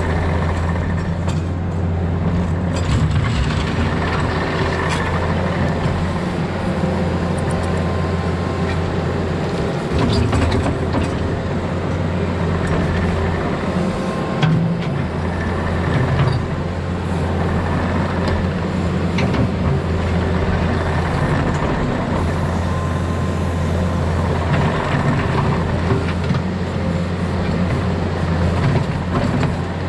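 Diesel engine of a Takeuchi compact excavator or track loader running steadily while it works, with a few short knocks and clanks, the clearest around the middle.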